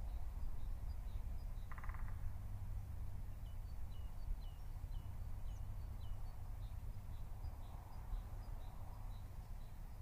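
Outdoor ambience of small birds chirping, with short high notes repeating throughout over a low steady rumble, and one brief harsh, buzzy call about two seconds in.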